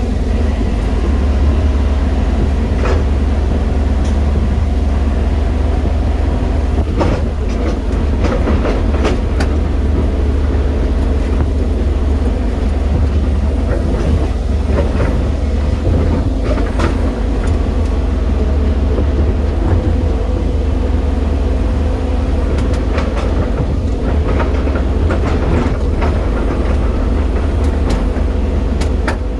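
Diesel engine of a JCB 215 excavator running steadily with a deep hum, with irregular clanks and knocks from the machine.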